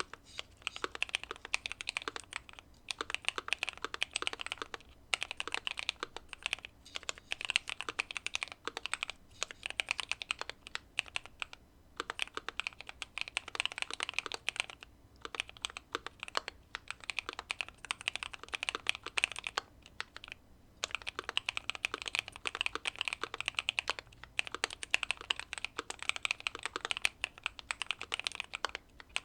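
Continuous typing on a Keychron Q2 mechanical keyboard with factory-lubed Pearl Lemon switches, a tape mod and case foam: rapid runs of keystroke clacks broken by short pauses every few seconds.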